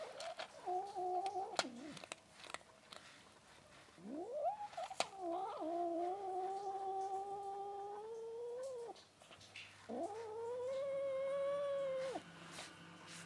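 Stray cat yowling, long and drawn out, three times, the longest held about five seconds. She is angry at being stroked on the head while she eats.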